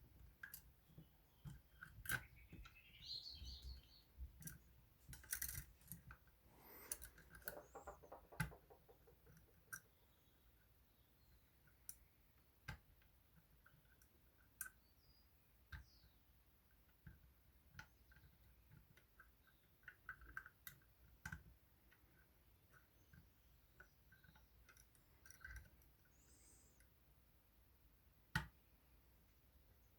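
Faint, irregular clicks and short scrapes of lock picks working the levers inside a Union 3G110 five-lever lock.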